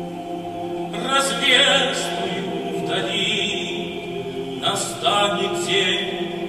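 Men's choir holding sustained chords while a solo male voice sings slow phrases over them, with no instruments standing out.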